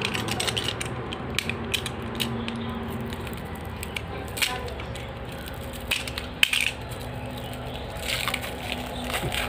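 Plastic wrap crinkling and rustling as hands turn a wrapped steel bracket and peel the film off it, with a few sharper clicks and a denser burst of crackling near the end.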